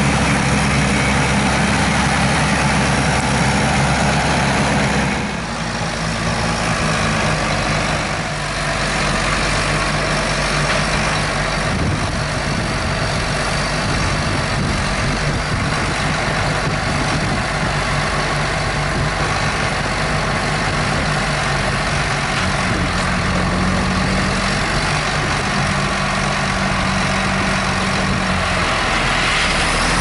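Tractor diesel engine running steadily under load while pulling a potato harvester through the field, along with the harvester's machinery noise. The engine note shifts about five seconds in.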